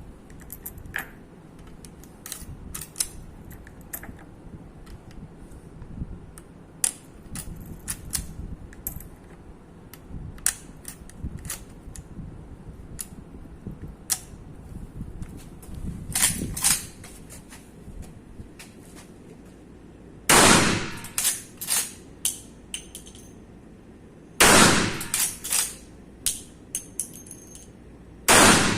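Gunshots: small clicks and gun-handling noise, a softer report about halfway, then two loud shots about four seconds apart, each followed by a quick run of fainter reports and a ringing tail.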